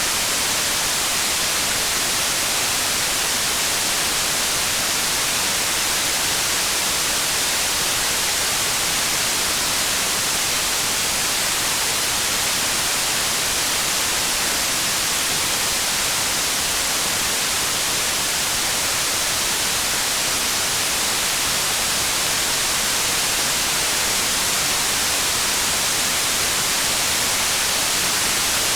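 Steady rain: an even, unbroken hiss that holds at one level, with no single drops standing out.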